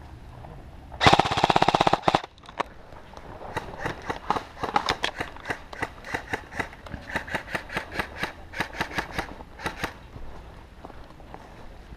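An airsoft electric rifle fires one loud full-auto burst of about a second, a rapid even chatter of shots. Several quieter single snaps of more airsoft fire follow, about two or three a second, over the next six seconds.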